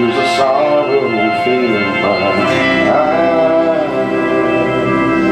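Church organ playing gospel worship music with long held chords, a voice singing sliding, wordless lines over it.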